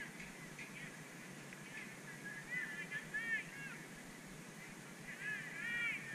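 Geese honking at a distance: clusters of short rising-and-falling calls, loudest about halfway through and again near the end.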